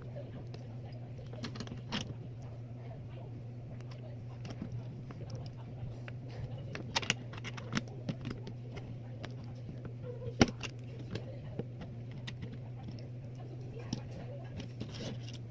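Small plastic block-figure parts clicking and tapping as a minifigure is handled and snapped together, in scattered light clicks with one sharper snap about ten seconds in, over a steady low hum.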